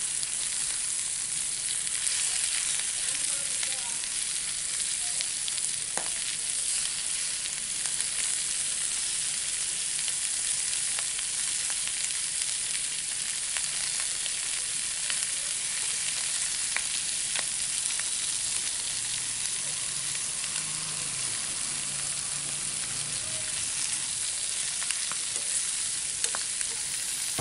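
Pork belly and rib pieces frying in hot oil in a pan: a steady sizzle with occasional small pops.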